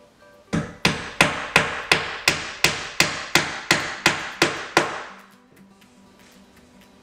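Hammer driving a nail into a sheet-wood countertop: about a dozen sharp, evenly paced blows, roughly three a second, stopping about five seconds in.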